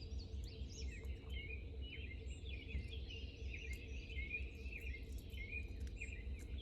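Several songbirds chirping and singing, many short quick notes overlapping, over a steady low rumble.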